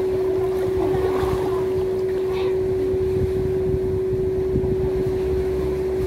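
A steady droning hum held at one unchanging pitch, over a low rumble of wind buffeting the microphone.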